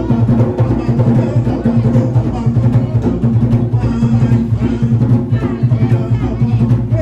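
Music with drums and percussion keeping a steady beat under a strong bass.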